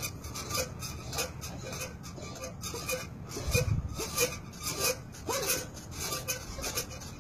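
Rhythmic rasping and rubbing, about three strokes a second, as a dog hangs and jerks on a springpole, its spring and rope working against the wooden post. One dull thump about halfway through.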